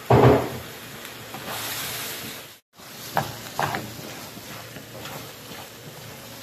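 Mutton chukka sizzling in a non-stick frying pan as a spatula stirs it, with a few sharp scrapes and taps of the spatula against the pan in the second half. A loud knock comes right at the start, and the sound drops out briefly just before the halfway mark.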